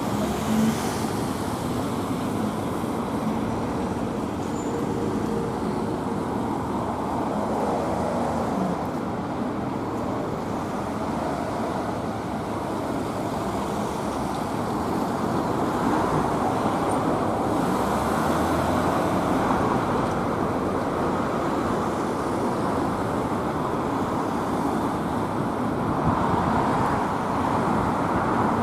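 Steady urban road traffic: cars and other motor vehicles passing, their engines and rolling noise rising and easing gently.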